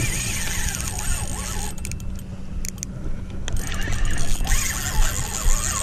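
Spinning reel's drag buzzing as a hooked stingray runs and strips line off the spool, thinning out for a couple of seconds in the middle before picking up again.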